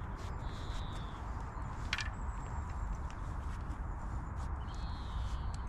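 Wind buffeting the microphone as a steady low rumble, with a sharp click about two seconds in and two short high chirps, one about half a second in and one near the end.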